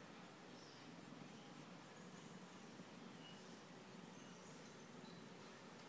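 Near silence: faint room tone, with a few faint, short high chirps now and then.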